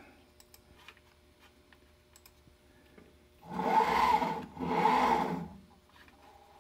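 Servo motor of the Emco Compact 5 lathe's CNC conversion driving the slide in two quick moves, each about a second long, with a whine that rises and falls in pitch as the axis speeds up and slows down.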